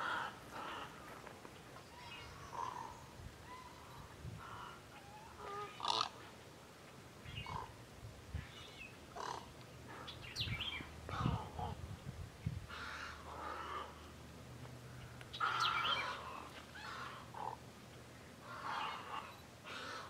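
A mixed flock of wading birds, chiefly great egrets, calling on and off: many short calls, one or a few at a time, with the busiest stretch around two thirds of the way through.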